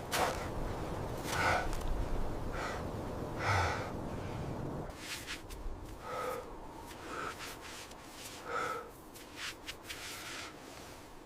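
A person breathing hard, with short heavy breaths and gasps coming roughly once a second. A steady rushing noise underneath drops away about halfway through.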